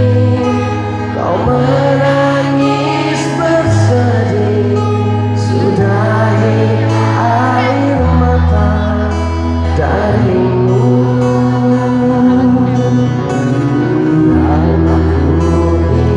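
Live band and a male singer performing through a concert PA system, a slow song with steady bass notes under the sung melody, heard from the audience.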